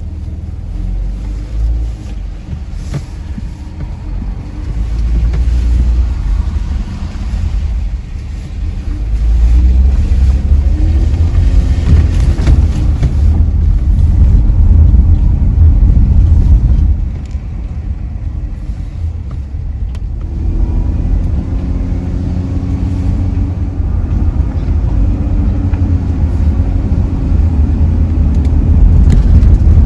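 Minivan driving: a steady low engine and road rumble, the engine's pitch drifting up and down. It eases off about 17 seconds in, then builds again.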